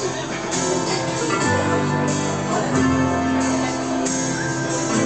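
Live instrumental passage of acoustic guitar strumming with a mandolin, no singing; the chords change about every second or so.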